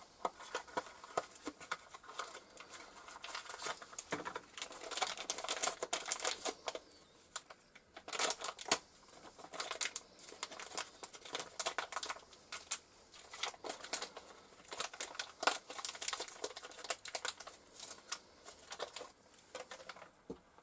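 Packaging crinkling and rustling with many irregular light clicks as a lathe tool holder is unwrapped.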